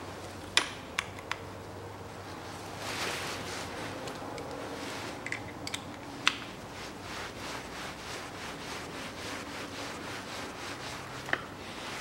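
Ratchet wrench clicking in a fast, even run as a bolt on a manual gearbox housing is turned. A few sharp metal clinks of tools come in the first second and a half, again around five to six seconds in, and once more near the end.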